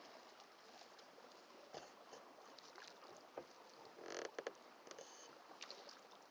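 Near silence: faint steady hiss of a shallow brook running, with a few soft clicks and one brief rustle about four seconds in.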